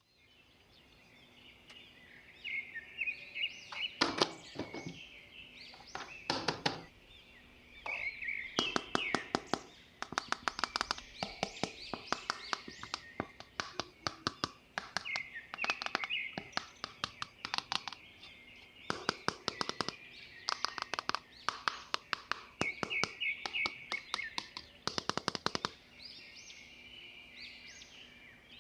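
Runs of sharp, rapid clicks and taps, several a second, with birds chirping steadily behind them.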